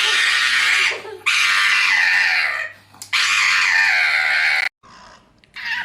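A pet animal screaming loudly: three long, raspy screams in a row, each over a second long. The sound cuts off suddenly near the end, and quieter noises follow.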